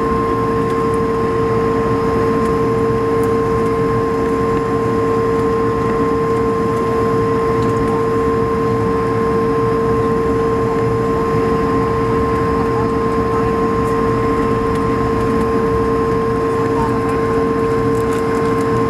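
Cabin noise of an Airbus A220-300 (Bombardier CS300) taxiing, heard by the window over the wing: a steady low rumble from its idling Pratt & Whitney PW1500G geared turbofans, with a steady two-note hum on top.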